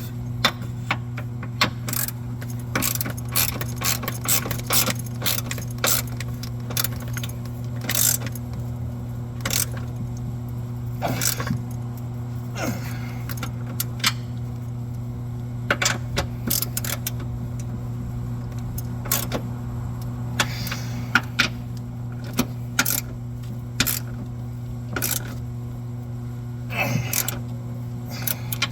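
Irregular metallic clicks and clinks of hand tools, a socket ratchet worked on the transmission mount bolts, with a steady low hum underneath.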